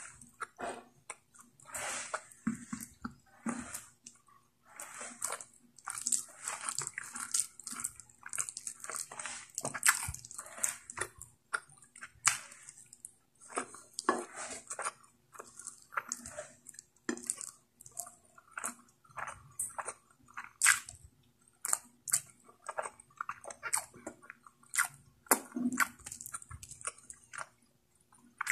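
Close-miked wet chewing and mouth smacking of saucy pork curry, eaten by hand: a steady run of irregular soft clicks and squelches with brief pauses.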